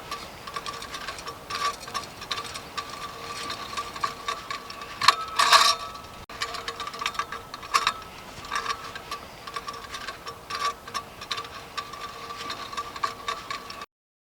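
Ratchet torque tool clicking as it tightens a Jubilee clip (worm-drive hose clamp) around a post: irregular ticks, with a louder clatter about five seconds in. The sound cuts off suddenly near the end.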